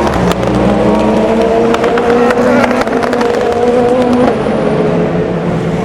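Endurance race car engine accelerating out of a corner, its note climbing steadily and then dropping at an upshift about four seconds in, with sharp crackles in the first few seconds.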